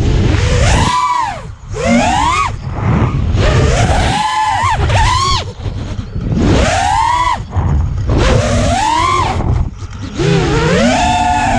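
FPV quadcopter's brushless motors whining, their pitch swooping up and down over and over as the throttle is punched and cut, with short drops in level at each cut. A low wind rumble runs underneath.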